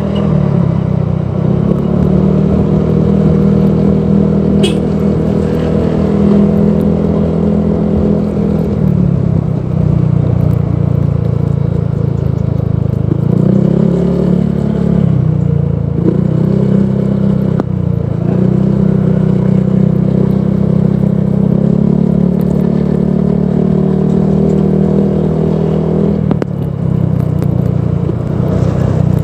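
Honda PCX 160 scooter's single-cylinder engine running through a Proliner Neo Silent aftermarket exhaust, a steady deep exhaust note. Its pitch drops and picks up again a few times as the throttle is eased and reopened.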